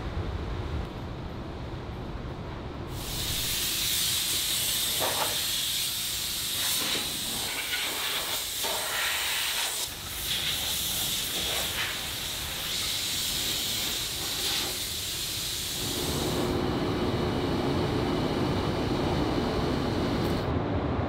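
A loud steady hiss, typical of compressed air or abrasive blasting, as steel blasting grit is cleaned off a welded pallet-truck frame. It starts about three seconds in and stops about sixteen seconds in. Before and after it there is a low steady hum from factory machinery.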